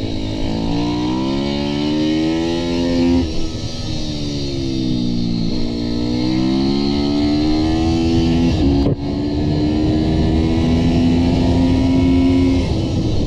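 Mini superbike's engine heard from on the bike at speed: the revs climb, fall away for a couple of seconds, climb again, break briefly near nine seconds, then hold fairly steady.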